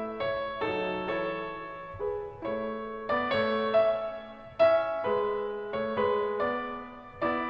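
Background piano music: a slow, gentle melody of single struck notes and chords, each ringing and fading.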